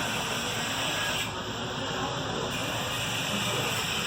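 Steady background hiss with no distinct events, dipping slightly in its upper range for about a second near the middle.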